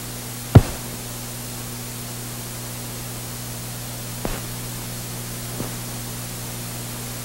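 Steady hiss and low hum of an old 1947 film soundtrack with no program sound, broken by one sharp pop about half a second in and two fainter pops later on.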